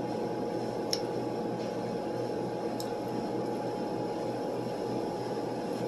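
Steady room hum with a faint constant tone running under it, and a couple of soft clicks: one about a second in and a fainter one near three seconds.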